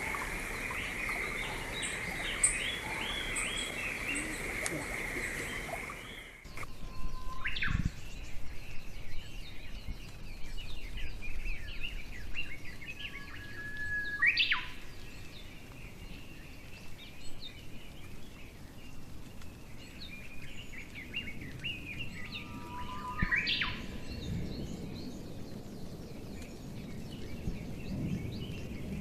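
Wild birds singing and chirping in a steady chorus, with a louder call three times, a short held note followed by a quick upward sweep. The background changes abruptly about six seconds in.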